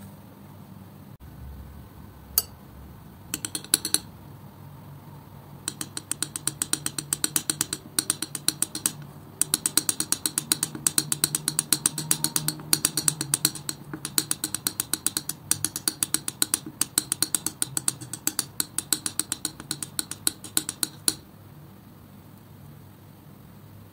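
Palette knife working thick wet acrylic paint: a quick run of sharp, sticky clicks, about four a second, with a few scattered clicks before it starts. The clicks stop shortly before the end.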